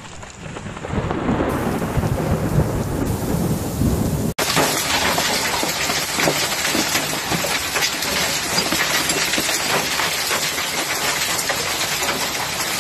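Thunder rumbling with rain, swelling over the first second. After a sudden cut at about four seconds, a dense hailstorm pelts the ground in a continuous clatter of hailstones.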